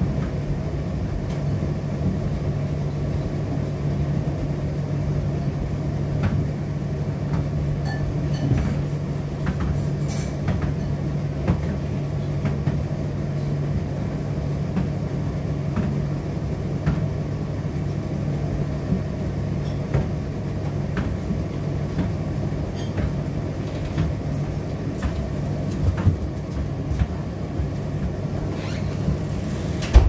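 Indesit IDC8T3 condenser tumble dryer running a drying cycle: a steady low hum and rumble from the turning drum and fan, with scattered light clicks and knocks.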